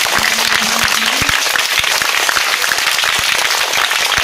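A crowd of schoolchildren clapping their hands in steady, dense applause.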